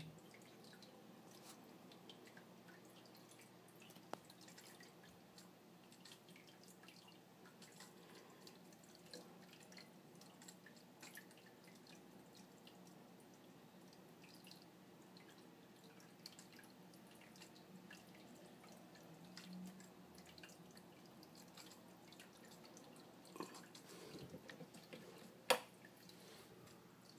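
Near silence: faint dripping of aquarium water over a low steady hum, with scattered small ticks and one sharp click near the end.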